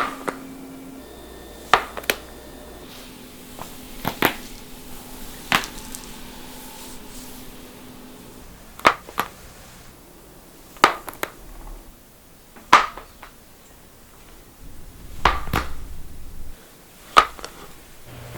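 Neck joints cracking: about a dozen sharp pops spread through the stretch, several coming in quick pairs.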